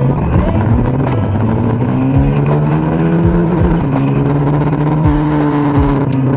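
Kawasaki Dominar 400's single-cylinder engine pulling on the move, its pitch climbing through the first three seconds or so, dropping at a shift, then holding steady and easing off, over road and wind noise.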